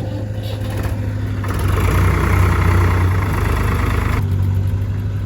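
Heavy diesel engine running steadily, with a louder rushing noise from about one and a half to four seconds in that cuts off suddenly.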